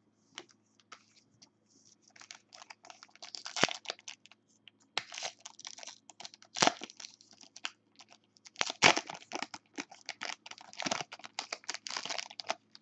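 Foil wrapper of a Bowman Sterling baseball card pack being crinkled and torn open by hand. It makes an irregular run of crackles with several sharper, louder rips.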